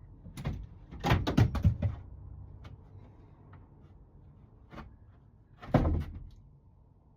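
Knocks and bangs from a fitted bunk panel being pulled and worked loose: a quick run of loud bangs about a second in, a few lighter taps, and another loud bang near the end.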